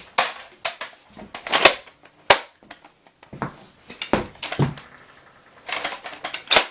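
Plastic Nerf blaster being handled and worked by hand: a series of irregular sharp plastic clicks and clacks, bunched together near the end.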